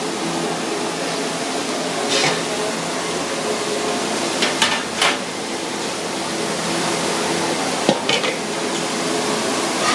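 Metal trays and a steamer pot and lid clanking a few times, over a steady rushing noise of a commercial kitchen.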